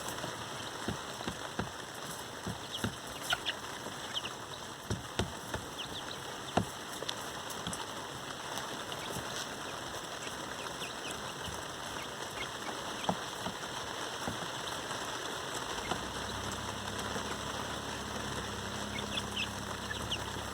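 Young Buff and Lavender Orpington pullets, seven to ten weeks old, giving short high peeps and soft clucks over a steady patter of rain with drips ticking down. A low steady hum comes in near the end.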